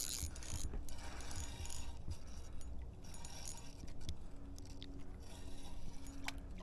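Fishing reel being cranked steadily, its gears whirring with a ratcheting rattle, as a hooked fish is reeled in.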